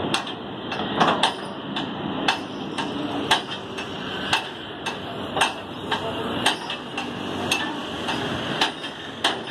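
Repeated hammer blows on metal, about two a second, over a steady hum of road traffic.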